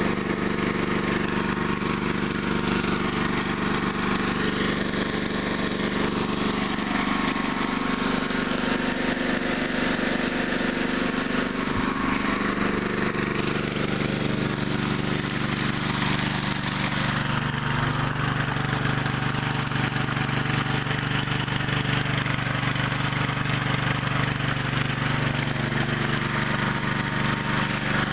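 Small engine-driven water pump running steadily at a constant speed, with water gushing from its outlet pipe and washing down a wooden sluice box.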